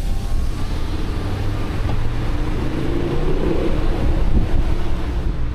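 Wind and road noise rushing in through the open side window of a moving Winnebago Travato camper van, a steady rush over the rumble of the tyres and engine.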